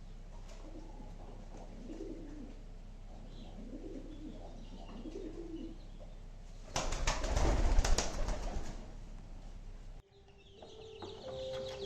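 Farm birds calling softly and low a few times, then a loud rustling noise lasting about two seconds. After a sudden change about ten seconds in, high chirps sound over a steady tone.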